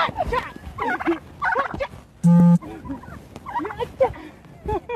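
Turkey gobbling over and over in short, rapid calls. About two seconds in, a brief loud steady tone sounds over it.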